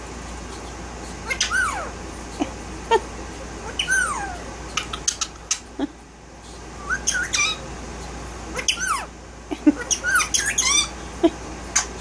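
Indian ringneck parakeet calling: several runs of short squawks and chirps mixed with sliding whistled notes that rise and fall.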